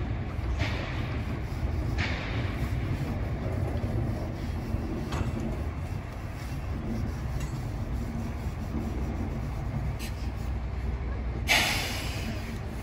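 Diesel shunting locomotive running slowly while it moves a passenger coach, giving a steady low engine rumble. Short hisses break in a few times, the loudest about eleven seconds in.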